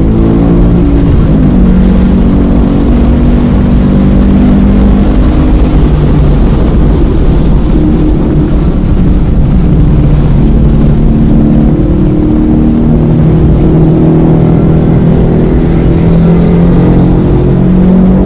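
Car engine at hard throttle, heard from inside the cabin, pulling up through the gears. Its note drops at the shifts about a second and about six seconds in, then changes again as the car slows for a corner near the end.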